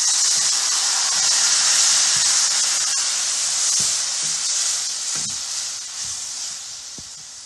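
Loud steam hiss and sizzle as soaked kudampuli (Malabar tamarind) and its water are poured into a hot pan of oil-fried onions and spice masala. It starts suddenly and fades slowly as the liquid heats, with a few light knocks of the stirring spatula.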